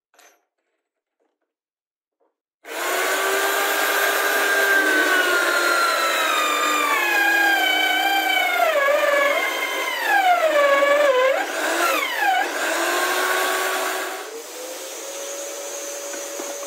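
Drill press motor starting about three seconds in and boring through a thick MDF disc; its pitch sags and wavers as the bit bites into the board, then rises again. Near the end it runs quieter and steadier as the bit clears the cut.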